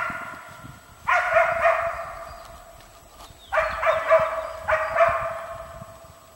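West Siberian laika barking at a moose it has brought to bay, in short runs of two or three barks with pauses between, each bark ringing on as it fades.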